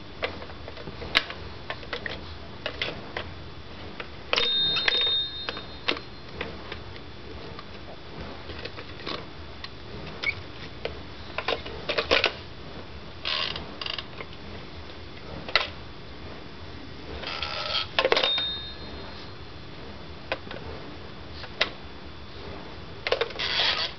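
A Fisher-Price Chatter Telephone pull toy being handled: scattered clicks and knocks from its dial, wheels and plastic body. A short bell-like ringing comes twice.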